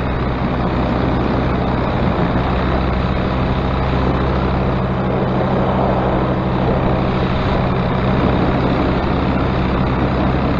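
Paramotor engine and propeller running steadily at reduced throttle, with a rough, buzzing noise over the engine note, which the pilot took for the newly applied propeller tip tape having come loose.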